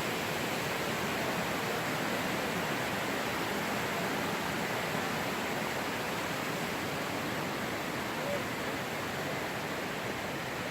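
Steady rush of flowing water, an even hiss with no breaks, easing slightly near the end.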